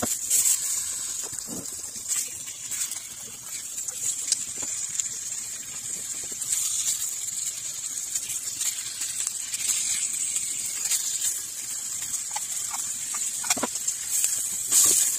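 Raw chicken pieces sizzling in a hot nonstick frying pan: a steady high hiss with scattered crackles and clicks as more pieces go in and are moved about. The audio is played at double speed.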